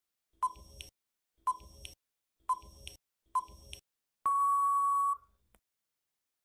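Countdown timer sound effect: four short electronic beeps about a second apart, then one longer beep about four seconds in as the countdown runs out.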